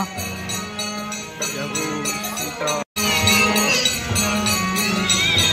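Devotional kirtan music: a harmonium sounding held notes, with a hand drum and jingling percussion. The sound drops out abruptly for a moment about three seconds in, then carries on.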